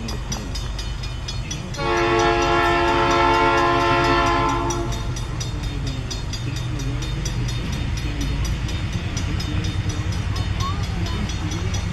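Train horn sounding one long blast of about three seconds, starting about two seconds in, over the steady low rumble of the moving train.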